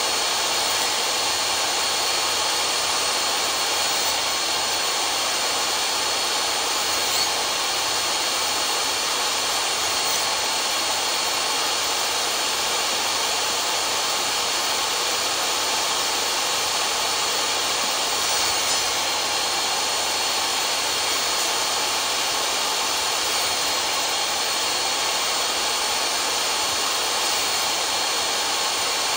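Jobsite table saw running steadily with a high whine while small pieces of wood are pushed through along the fence.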